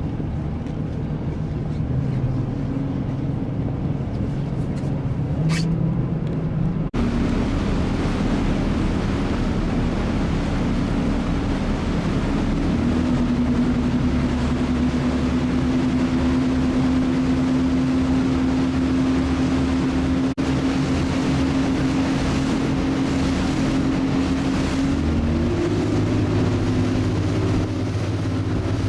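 Speedboat engine running steadily under way, with wind and water rushing past. The engine's pitch steps up a little about halfway through and again near the end, and the sound drops out briefly twice.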